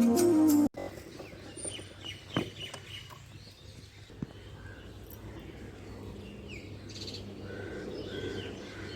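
Background music cuts off abruptly less than a second in, leaving a quiet outdoor background with birds chirping: scattered short chirps, then a run of short repeated notes near the end. There are two brief sharp clicks in the middle.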